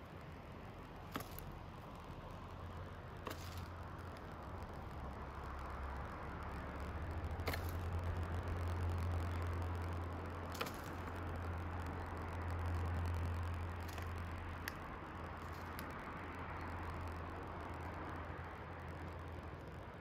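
Steady low outdoor rumble with a hiss that swells and fades twice, and several sharp clicks scattered through.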